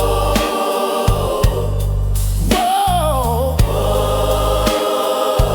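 Gospel music: a choir holding long sustained notes over bass and drums with a steady beat.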